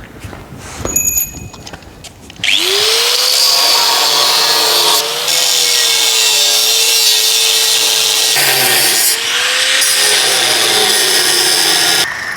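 An electric motor starts about two seconds in with a quickly rising whine. It then runs for about nine seconds with a wavering pitch and a loud, harsh grinding, scraping noise, dips briefly twice, and stops abruptly.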